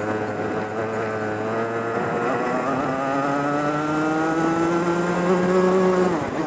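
DMAX racing kart's engine heard onboard: the note holds low for about two seconds, then climbs steadily for about four seconds as the kart accelerates, and drops sharply near the end as the throttle comes off.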